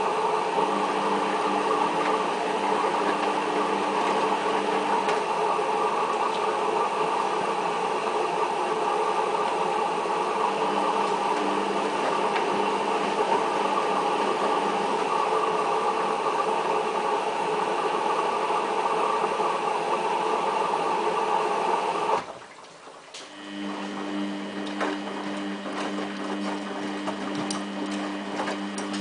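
Samsung WF8804RPA front-loading washing machine in its final rinse: a steady mechanical running noise with water in it, which cuts out suddenly about 22 seconds in. After a second's pause, a lower steady hum with two clear tones starts up.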